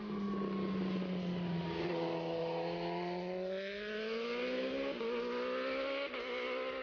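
Kawasaki Ninja ZX-RR MotoGP race bike's inline-four engine on track. Its note falls for about two seconds, then climbs steadily under acceleration, with two brief breaks near the end, as at gear changes.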